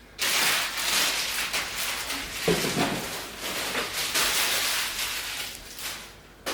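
Plastic and cardboard packaging rustling and crinkling as parts are handled and unpacked, a continuous crackle that eases off near the end.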